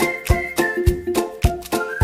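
Upbeat background music with a steady beat and a high melody over it.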